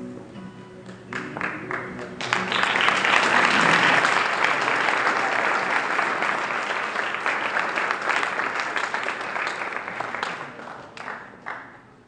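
Audience applauding: a few scattered claps over the last of the closing music, swelling into full applause about two seconds in and dying away near the end.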